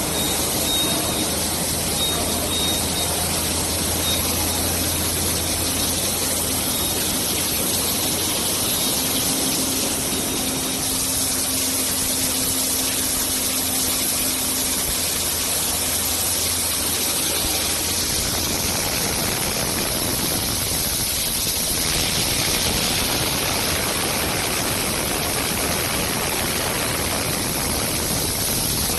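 Steady running noise of a tomato-paste canning line: slat-chain conveyor and machinery carrying sealed cans, a dense hiss with a low hum that fades out about two-thirds of the way through.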